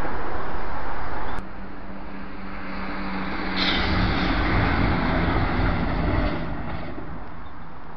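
Electric passenger train passing over a level crossing: a rushing rumble starts about three and a half seconds in and lasts about three seconds before fading. Before it, a loud steady rush of noise cuts off abruptly about a second and a half in.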